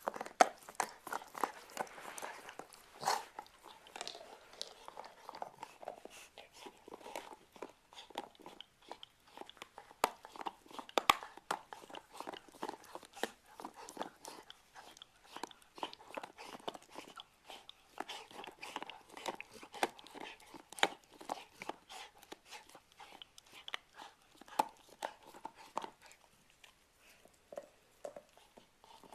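Golden retriever chewing, with a dense, irregular run of crunches and clicks of teeth on something hard.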